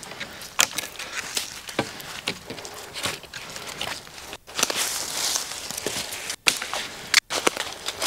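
Dry wooden sticks knocking and scraping as they are leaned into a lean-to shelter frame, with rustling and footsteps in dry leaf litter; a series of sharp irregular clicks and knocks.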